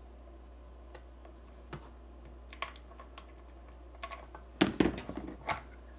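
A clear acrylic enclosure and circuit board being handled on a workbench: scattered light plastic clicks and taps, with a louder cluster of knocks and clatter about three-quarters of the way through.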